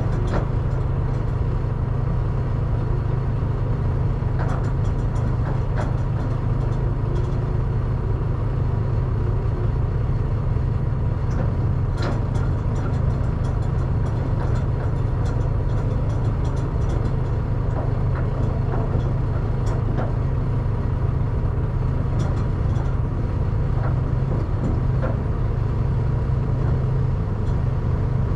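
Semi truck's diesel engine idling steadily, a low even rumble, with faint scattered clicks and taps over it.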